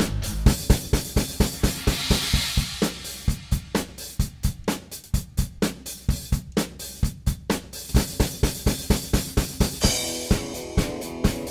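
Background music with a steady drum-kit beat, with a cymbal swell about two seconds in and another near the end.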